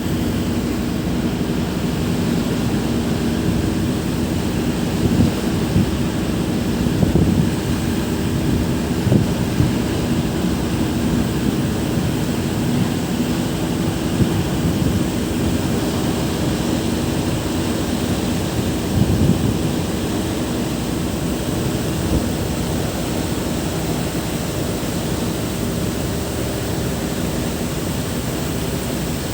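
Stormy sea and wind, with rough low noise buffeting the microphone in gusts and a faint steady hum underneath.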